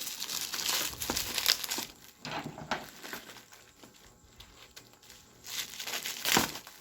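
Packaging crinkling and rustling in irregular bursts as an item is unwrapped by hand, quieter in the middle and picking up again near the end.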